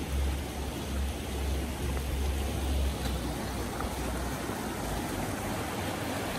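Stream water rushing steadily through narrow rock channels and over a small cascade, with a low rumble under it for the first four seconds or so.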